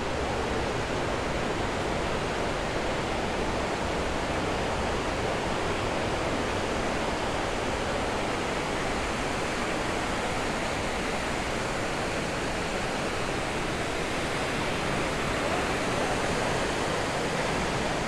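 Giessbach Falls' water pouring down in a steady, continuous roar.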